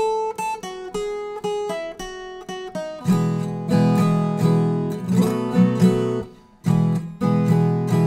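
Viola caipira, the Brazilian ten-string folk guitar, played in a cururu: a picked single-note melody line for about three seconds, then full strummed chords in a steady repeating rhythm, with a short break just after six seconds.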